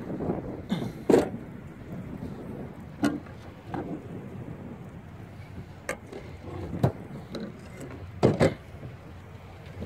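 Scattered knocks and bumps on a wooden boat, half a dozen or so sharp ones spread through, the loudest about a second in and a double knock near the end, over a steady low rumble.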